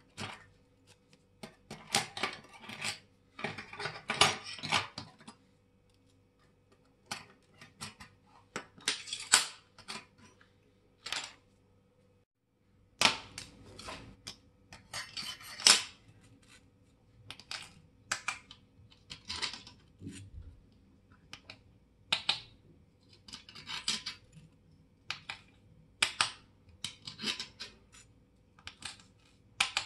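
Small metal watch parts and watchmaker's hand tools clicking and clattering on the bench in irregular short bursts, with single sharp clicks in between.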